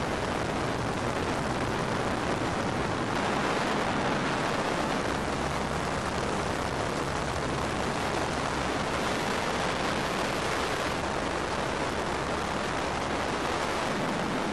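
Helicopter in flight: a steady, even roar with no breaks or changes in pitch.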